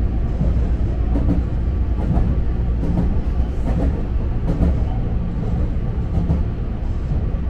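Electric commuter train running at speed, heard from inside the front car: a steady low rumble with a light click of the wheels over the rails about once a second.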